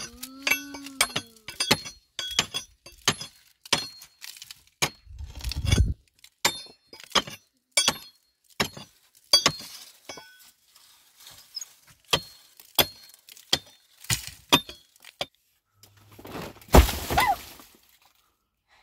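Steel pickaxe striking rock over and over, sharp ringing clinks about twice a second. A low heavy thump comes about five seconds in, the strikes stop a few seconds before the end, and a louder burst follows.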